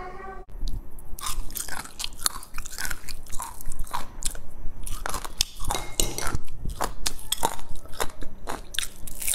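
Close-miked crunching and chewing of crisp deep-fried battered eggplant fritters: a quick, irregular run of crackling bites.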